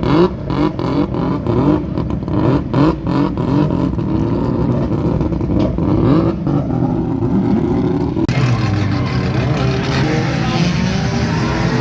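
A car engine revving hard in quick rising blips, with sharp pops between them. About eight seconds in the sound changes abruptly to an engine running steadier under a broad hiss.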